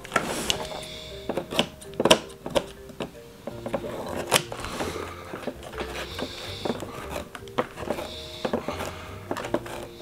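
Soft background music with held notes, over irregular clicks, knocks and rubbing as hands pull wrapped hair and fibres off the brush roll of a Shark Lift-Away vacuum cleaner's upturned plastic floor head.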